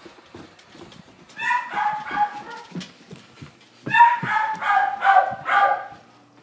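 A dog barking in two quick bouts of high yelping barks, one about a second in and one about four seconds in, with scattered knocks and footfalls beneath.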